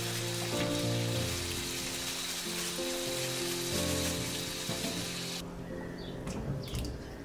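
Tap water running and splashing over vegetables in a stainless steel sink, cutting off about five seconds in, with a few light handling knocks after. Soft background music of slow sustained notes plays throughout.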